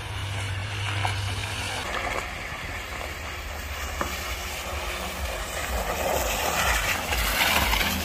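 Mercedes-Benz GL-class V8 SUV driving slowly up over slushy, icy ground and pulling alongside: a low engine sound and the hiss of tyres in the slush, growing louder as it comes close near the end.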